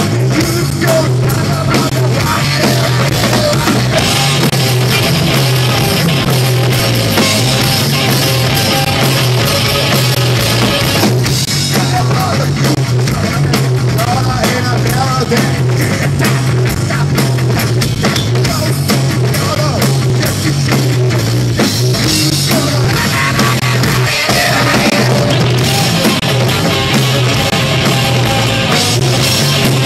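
Rock trio playing live: electric guitar, bass guitar and drum kit, loud and continuous.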